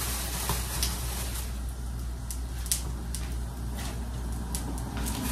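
Cooking at a kitchen stove: pots and utensils being handled, giving a scatter of light clicks and taps over a steady low hum.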